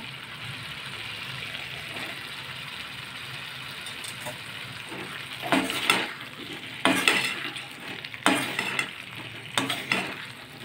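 Boiled jackfruit pieces sizzling in onion-tomato masala in a metal kadai, then being stirred in with a steel slotted spatula: a steady frying hiss, and from about halfway on several scrapes and knocks of the spatula against the pan.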